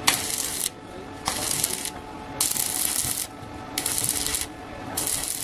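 Stick (arc) welding on a steel tube frame: the arc crackles and hisses in five short runs of under a second each, with brief pauses between them.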